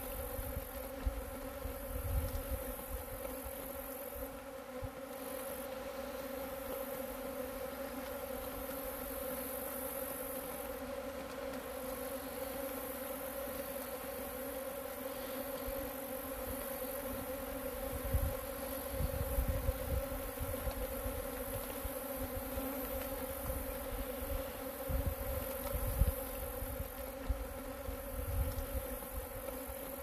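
Many alfalfa leafcutter bees buzzing around their nesting boards, a steady drone with no break. Wind buffets the microphone a few times with low thumps.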